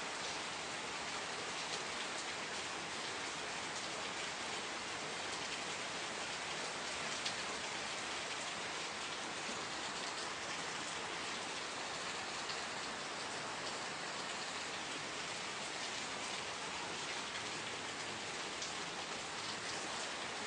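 Steady rain falling: an even hiss with scattered, slightly louder individual drop ticks.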